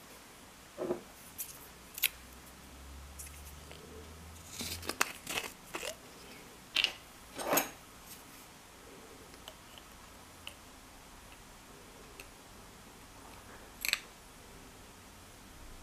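Handling sounds from a small bottle of almond extract and a plastic measuring spoon: scattered light clicks and taps, bunched together in the middle, with one more sharp click near the end as the extract is poured into the spoon.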